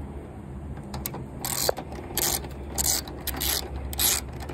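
Socket ratchet clicking in five short bursts about 0.6 s apart as it loosens an 8 mm bolt by hand strokes, over a steady low hum.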